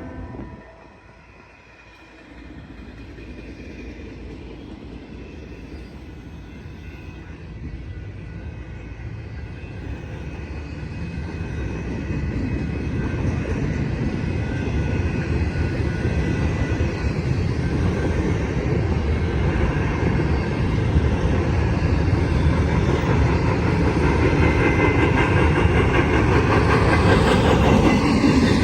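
Train approaching: after a horn blast cuts off at the very start, the rumble of the locomotive and rolling wheels grows steadily louder, loudest near the end.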